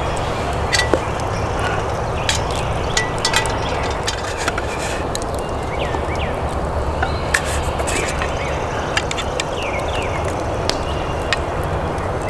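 Light clinks and taps of a stainless steel camp cup and a small metal tin being handled and opened, and a wooden spoon scooping coffee grounds, scattered over a steady background rush.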